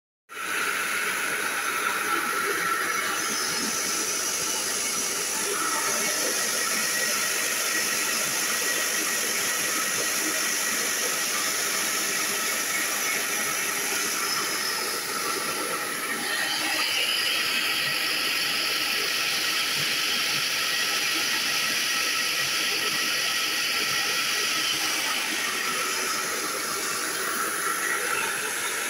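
Small electric rice mill hulling paddy, running with a loud, steady hissing machine noise. The high hiss drops in pitch around the middle and rises again near the end.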